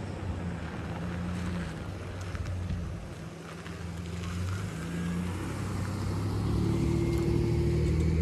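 A car or truck approaching and driving past, followed by a Suzuki DR-Z400 motorcycle's single-cylinder engine coming by close at the end. The engine pitch steps up and down, and the sound grows louder to its peak as the motorcycle passes.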